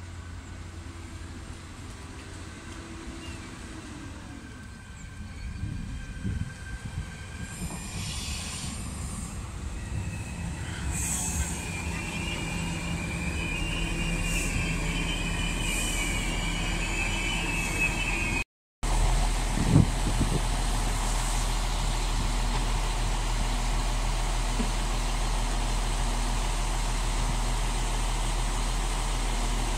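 Irish Rail 22000 Class InterCity diesel railcar pulling into the platform, with a high, wavering squeal from its wheels and brakes for several seconds as it slows. After a cut, its underfloor diesel engines hum steadily as it stands at the platform.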